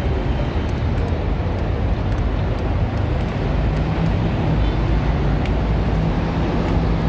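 Steady low rumble of motor-vehicle traffic, with a faint engine hum running through it.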